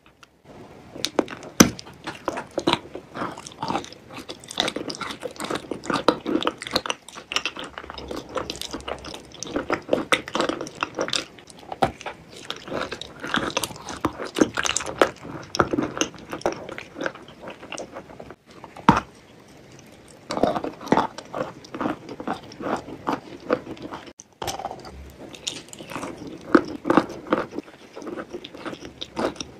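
Close-miked ASMR eating sounds: repeated bites into a soft, sauce-coated food, with wet, sticky chewing and mouth clicks, broken by a couple of brief pauses.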